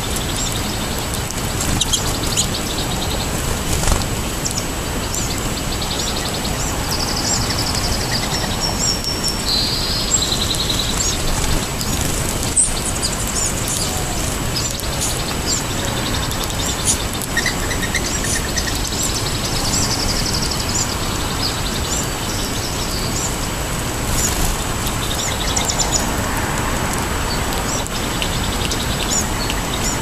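Small songbirds chirping: many short high call notes and a few brief trills scattered throughout, over steady background noise.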